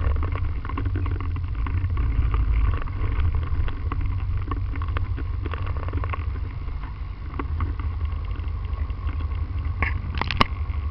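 Motorcycle engine running at low revs, close to the microphone, as the bike rolls slowly and then sits idling. There is a sharp click about ten seconds in.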